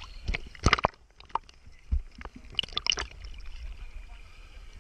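Sea water sloshing and splashing over a waterproof action camera bobbing at the waterline, with a run of short splashes in the first second and another cluster about two to three seconds in.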